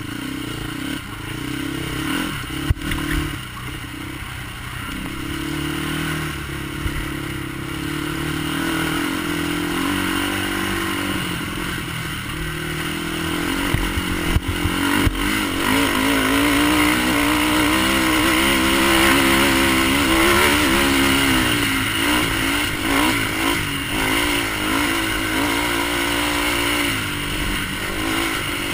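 Polaris Outlaw race quad's engine being ridden hard over whoops, the revs rising and falling constantly with the throttle and held high for several seconds past the middle. A few sharp knocks come through as the quad hits the bumps.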